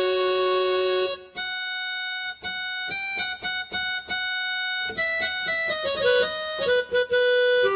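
Casio CTK-2550 portable keyboard played by hand, demonstrating one of its built-in tones: a held note, then a melody of short, separate notes that come quicker near the end.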